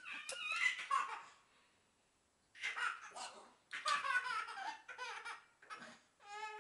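Baby laughing in repeated bursts of giggles, stopping for about a second before starting again, with a short high squeal near the end.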